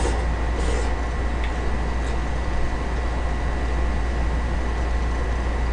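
Steady low hum and hiss of background room noise, with two brief soft hisses right at the start and a few faint clicks.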